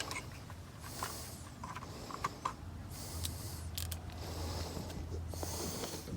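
Faint clicks and creaks from small Phillips screws being worked loose on a van's steering-column clock spring, with a soft hiss about every two seconds and a low hum in the second half.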